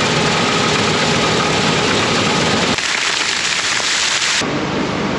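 Loud, steady machinery noise, a dense rushing roar with a faint steady whine. It changes abruptly about two thirds of the way in and again near the end, as if cut between short clips.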